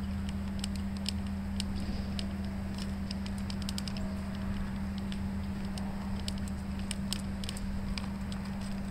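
Irregular light clicks and ticks of a plastic air cleaner housing and its bolts being handled, over a steady low hum.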